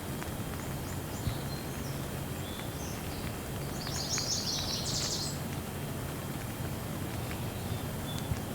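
Steady rain falling, heard as an even hiss, with a bird chirping over it. A quick run of chirps comes about four to five seconds in.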